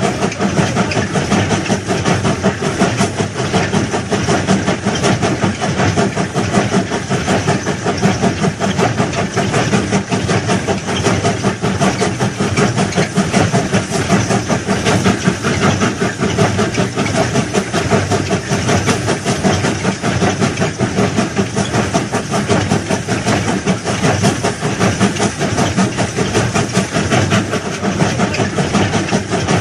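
Engine of a CCPG500 rail track-laying machine running steadily with a fast, even throb as it works along the new track.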